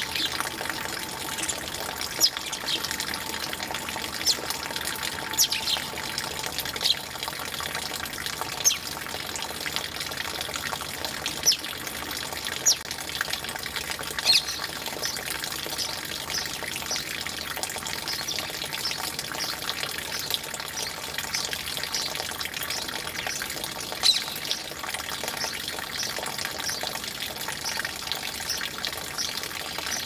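House sparrows chirping in short, sharp notes, about one a second and more thickly near the end, over a steady rush of running water.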